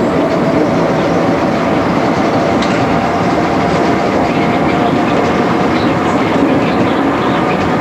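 MI79 electric multiple unit running along the line, heard from inside the driver's cab: a steady rumble of wheels on rails with a few faint clicks and a faint steady tone under the noise.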